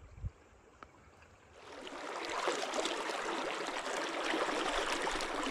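Flowing river water rushing steadily, fading in about two seconds in after a quiet start with a soft click.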